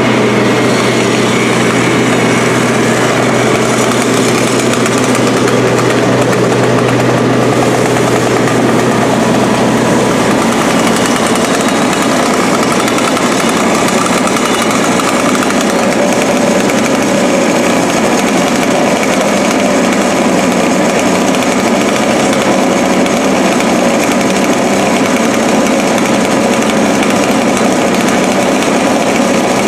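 Fire hose stream spraying water onto a burning car, a loud steady rush, over a steady mechanical drone. A low hum under it stops about ten seconds in.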